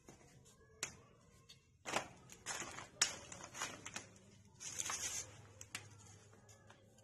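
Irregular soft pats and rustles of roti dough being shaped and flattened between the hands, with a few sharper taps among them.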